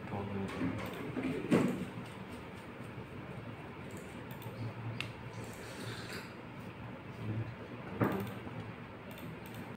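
Quiet room noise with two short knocks, one about a second and a half in and one near the end, and a faint click around the middle.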